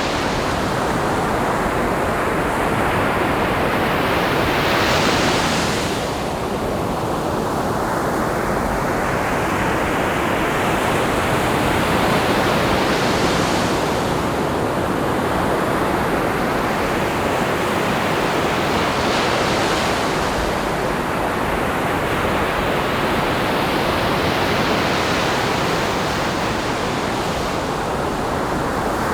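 Ocean surf: a continuous wash of breaking waves, with three stronger waves cresting and hissing up, at intervals of about seven seconds.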